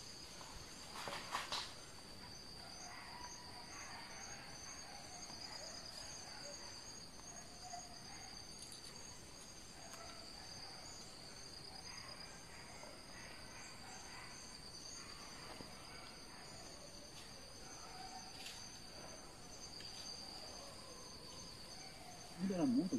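Steady chorus of forest insects: a continuous high buzz with an evenly pulsing trill above it. A couple of soft knocks come about a second in, and a short, louder low sound near the end.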